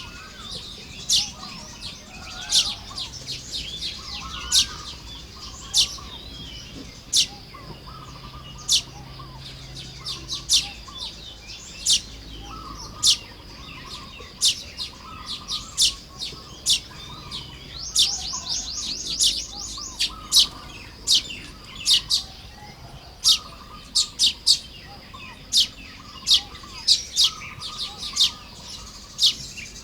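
Baya weavers chirping and chattering around their nests, with many sharp, high chirps at irregular intervals. About eighteen seconds in there is a rapid buzzy trill.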